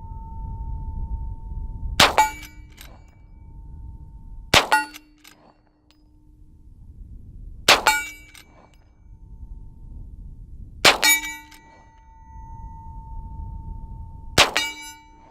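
Five shots from a Winchester Model 1873 lever-action rifle in .45 Colt, roughly three seconds apart. Each shot is followed almost at once by the clang of a hit on a steel target, which rings on with a steady tone.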